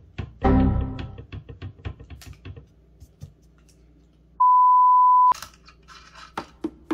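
Aluminium heated bed of a Creality CR-6 SE 3D printer handled and wiggled by hand: a clunk with a short metallic ring, then light clicks and knocks from the loose bed, which has play in its mounting. Partway through, a steady one-second beep tone cuts in and stops.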